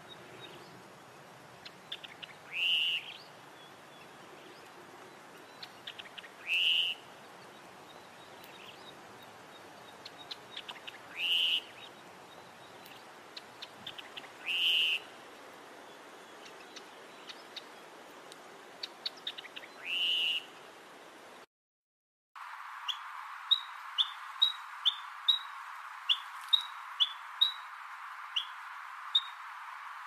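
Dark-capped yellow warbler calling: five loud, short notes a few seconds apart, with fainter chips between them. After a brief break a little over twenty seconds in, a male olive sunbird's advertising call follows: a quick run of short, sharp, high notes over a steady hiss.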